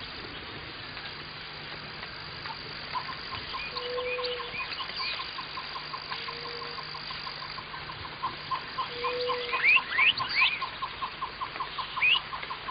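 Birds calling in the trees: sweeping chirps that grow louder in the second half, and a steady run of ticking notes at about four a second that starts a few seconds in and quickens. A short low note comes back every two to three seconds, over a faint steady hum.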